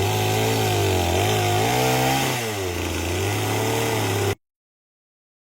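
Chainsaw engine running under load, its pitch dipping and rising as it cuts into the log. It cuts off abruptly about four seconds in.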